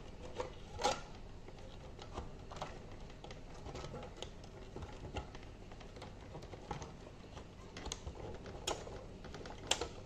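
Faint, irregular light clicks and taps of an instrument cluster's plastic casing and parts being handled as a gauge is fitted back in, with a slightly louder click about a second in and another near the end.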